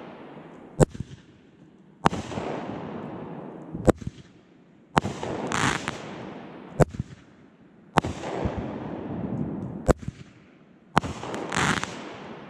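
Aerial fireworks fired one at a time about every three seconds. Each shot is a sharp launch bang from the pad close by, followed by a fading hiss as the shell climbs, then the sharp crack of the burst overhead about two seconds later.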